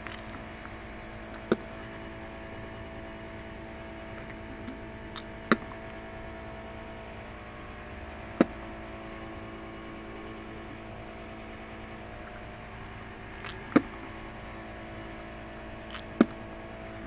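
Steady electrical hum with five sharp clicks a few seconds apart.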